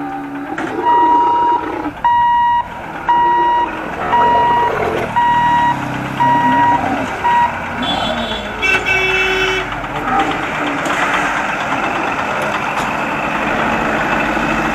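Electric level-crossing barrier warning buzzer beeping about once a second, seven times, while the boom barriers lift. A horn then sounds briefly, and a truck's engine and road traffic follow as vehicles start across.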